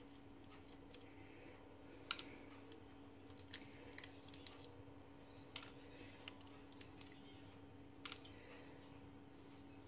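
Faint, scattered small clicks and taps of fingers picking at a raw eggshell to open a small hole in it, over a faint steady hum.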